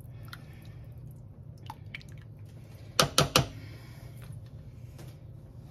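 Silicone spatula stirring thick soup in a ceramic slow-cooker crock, with soft wet squishing, then three quick sharp taps of the spatula on the crock about three seconds in.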